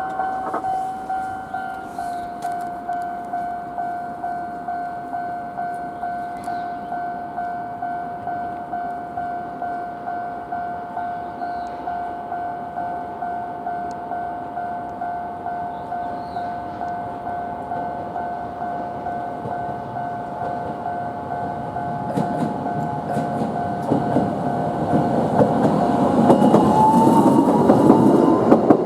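Japanese level-crossing warning bell ringing steadily, about two dings a second. From about two-thirds of the way in, a Toden Arakawa Line tram approaches and passes, its running noise swelling to the loudest sound, with a rising whine near the end.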